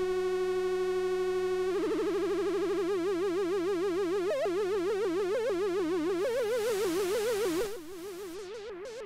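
Octave-Plateau Kitten II single-oscillator analogue synthesizer holding one buzzy note. About two seconds in, vibrato comes in and the pitch wobbles, changing in speed and depth as the modulation is adjusted. Near the end a hiss of noise is briefly mixed in and then the sound drops to a lower level.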